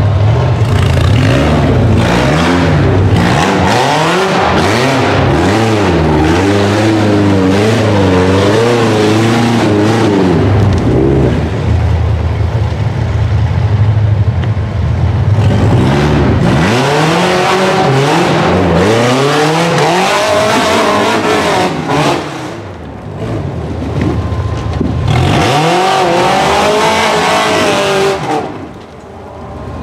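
Rail buggy's supercharged Ecotec four-cylinder engine revving hard under load on a rocky hill climb, its pitch swinging up and down in quick repeated surges. The revs drop away briefly twice, once about two-thirds of the way through and once near the end, before picking up again.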